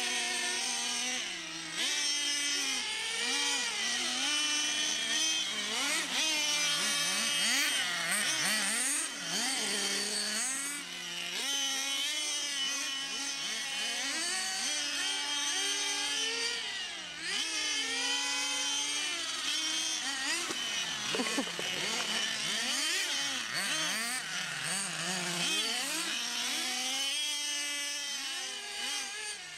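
Small nitro engines of radio-controlled cars revving up and down over and over, the high-pitched whine rising and falling every second or two as the cars accelerate and slow; at times two engines are heard at once.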